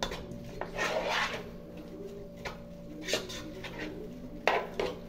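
A cooking utensil scraping and clinking against a frying pan a few times while tomato, onion, garlic and chiles cook in it, over a steady low hum.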